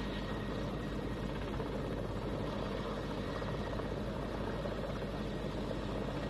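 Several large helicopters hovering and coming in to land, their rotors and turbines making a steady, unbroken drone.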